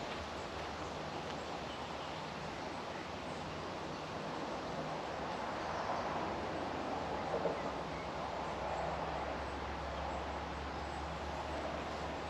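Outdoor ambience of steady rushing noise with a low hum, swelling in the middle, from passing road traffic, with a few faint bird calls.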